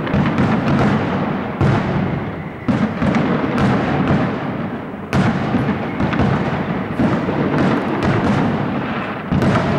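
Aerial firework shells bursting in quick succession: a continuous rolling rumble of overlapping booms, with sharper reports standing out every couple of seconds.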